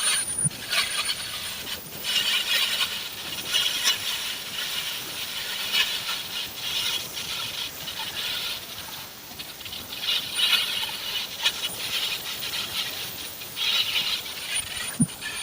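Electric welding arc crackling and hissing in uneven, sputtering stretches that swell and fade.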